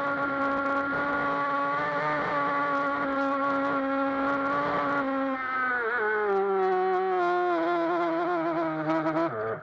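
Feilun FT011 RC boat's brushless motor whining steadily at speed, its pitch dropping and wavering about halfway through, then cutting off near the end.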